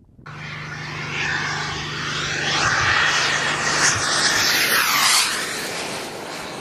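An airplane making a low pass. The engine noise swells to its loudest about four to five seconds in, its pitch sweeping down as it goes by, then fades off.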